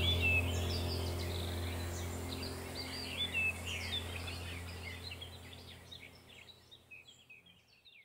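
Birds chirping in quick, rapid calls over a steady low drone, the whole sound fading out gradually to silence near the end.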